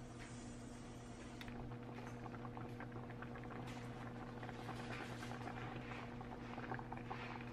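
Broth with a soy and chili-powder seasoning sauce simmering in a skillet, bubbling with a dense, irregular crackle as it reduces. A steady low hum runs underneath.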